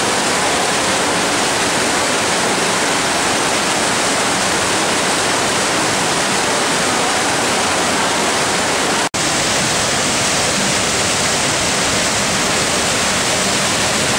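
Whitewater mountain creek pouring through a rocky chute and waterfall: a loud, steady rush of water, broken once by a split-second gap about nine seconds in.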